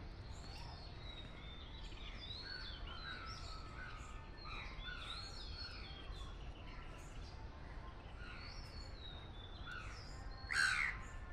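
Several songbirds chirping and whistling faintly over a light background hiss, many short calls overlapping, with one louder call near the end.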